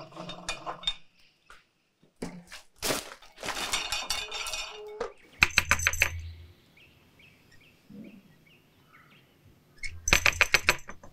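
For the first few seconds a rope runs over the well pulley and the bucket clanks. Then come two bouts of rapid, loud knocking, about four seconds apart: the iron ring knocker is rattled against an old wooden door.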